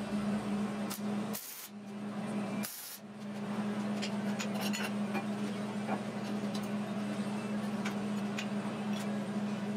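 Wire-feed (MIG) welder arc crackling and hissing steadily while tack-welding steel tubing, over a steady electrical hum. The arc stops briefly twice, about one and a half and three seconds in, then runs on.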